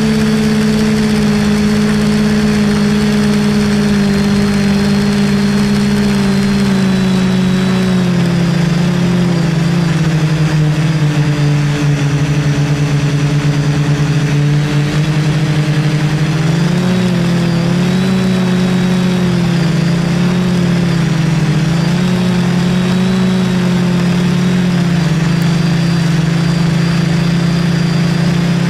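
DJI F450 quadcopter's four brushless motors and propellers humming in flight, heard from a camera mounted on the frame. The pitch holds steady at first, then wavers up and down from about eight seconds in as the motors speed up and slow down, and settles again near the end.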